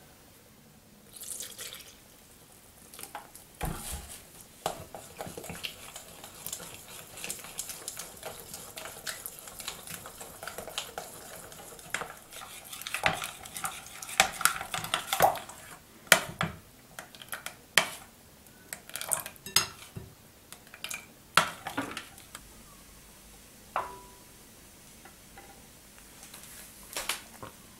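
A metal fork beating pancake batter in a glass bowl, tapping and scraping against the glass with quick clinks, then a few scattered clinks as the work slows.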